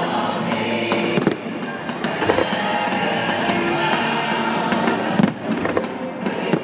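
Fireworks being fired: sharp bangs and pops, twice about a second in, again after two seconds and loudest about five seconds in, over steady music.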